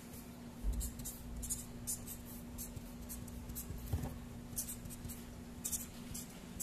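Felt-tip marker writing on paper: short scratchy strokes in irregular runs as letters are formed. A faint steady hum runs underneath, and there is a low thump about a second in.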